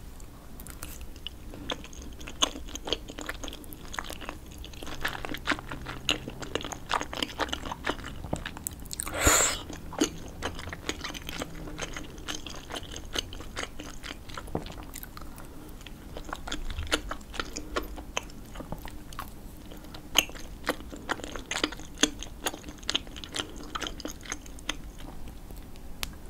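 Close-miked chewing and biting of tteokbokki rice cakes in sauce: quick, irregular mouth clicks and smacks throughout. There is one louder noisy burst about nine seconds in.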